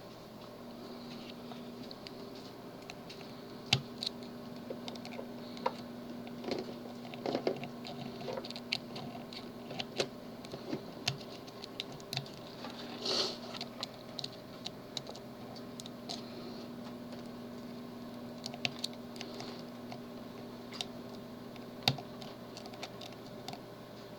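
Small irregular metal clicks and scratches of a pick and tensioner being worked around the pins of a tubular lock on a locking pill container, with a couple of sharper clicks and a short scrape about halfway. A faint steady hum sits underneath.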